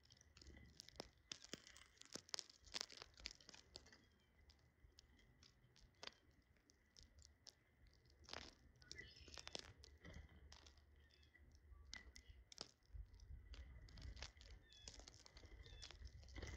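Small birds pecking at food, a faint, irregular run of quick clicks, taps and crunches.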